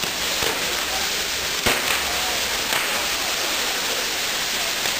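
Ground-firework wheel hissing steadily as its fountains spray sparks, with a few sharp cracks, the loudest a little under two seconds in.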